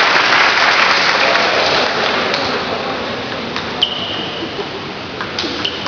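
Spectators applauding, fading away over the first two or three seconds. Then a few sharp clicks of a table tennis ball struck and bouncing on the table, two of them with a short high ping.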